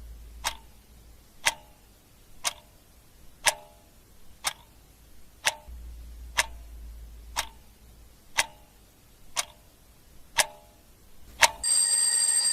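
Clock ticking as a countdown timer, one sharp tick a second, about twelve ticks. Near the end a loud alarm ring begins, signalling that time is up.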